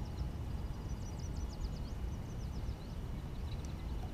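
Low wind rumble on the microphone. A small bird sings a quick run of high, falling notes about a second in.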